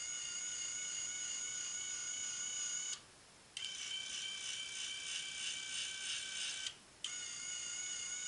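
Electric linear actuator adjusting the tension arm of a belt grinder: a steady high motor whine. It stops twice for about half a second each, about three and about seven seconds in, and its tone changes after the first stop.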